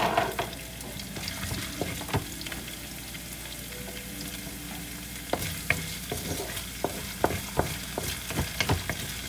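Minced ginger and garlic sizzling in hot oil in a metal wok, stirred with a wooden spatula that scrapes and knocks against the pan. The knocks come more often in the second half.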